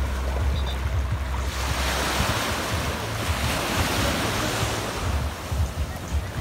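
Sea waves breaking and washing up the beach in the shallows, with a wave rushing in and growing louder about two seconds in. Wind buffets the microphone with a low rumble.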